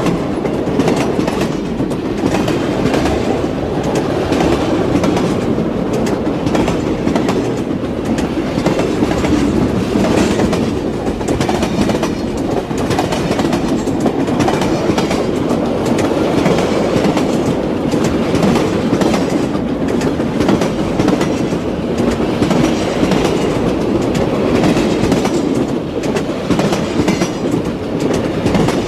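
Battery-powered toy locomotive with light and sound running on plastic track: a steady rattling train sound with dense, fast clicking.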